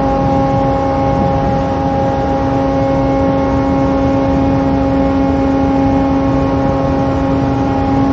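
Steady drone of the ship's machinery: a constant multi-tone hum over a broad rushing noise.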